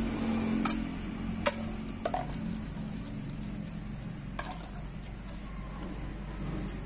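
A few short, sharp plastic clicks and taps as hands handle a tube of joined small plastic Yakult bottles, the sharpest about a second and a half in, over a low steady hum.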